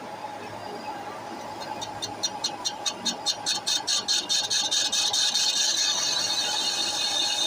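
A metal-cutting machine tool running. High-pitched ticks begin about two seconds in at roughly five a second, quicken, and merge into a steady high squeal near the end.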